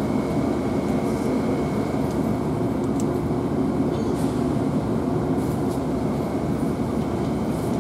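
Passenger train standing at the platform with its equipment running: a steady low rumble, with a thin high whine that fades out about two seconds in.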